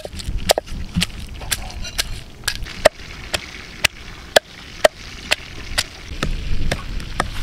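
Wooden pestle pounding garlic and red chillies in a wooden mortar: steady, sharp knocks about two a second.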